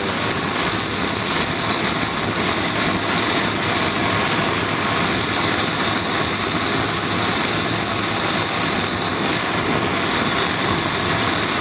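Gas brazing torch flame burning with a steady hissing rush, heating a copper capillary tube joint on a refrigerator evaporator.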